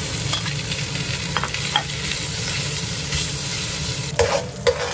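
Sliced cured pork sizzling in a hot wok as it is tipped in and stir-fried with a metal spatula, with a few light clicks and two louder knocks of the spatula against the wok near the end. A pressure cooker makes a steady background noise.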